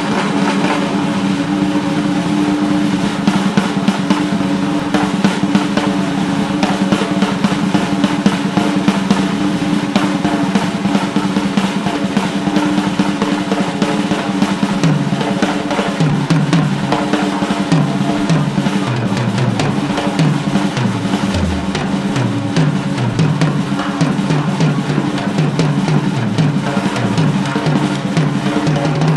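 Acoustic drum kit played solo: fast, continuous rolls on snare and toms with bass drum. From about halfway, the rolls move around the toms, stepping up and down in pitch.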